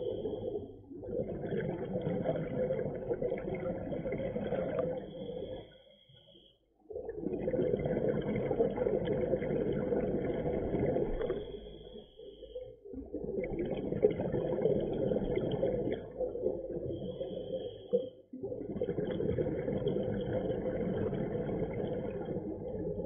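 Scuba breathing through a regulator, muffled through an underwater camera housing: long rushing, bubbling exhalations in four stretches, broken by short pauses.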